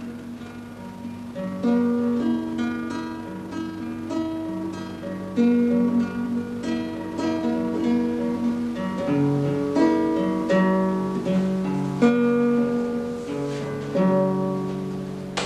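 Acoustic guitar playing a melody of plucked notes, with occasional strummed chords.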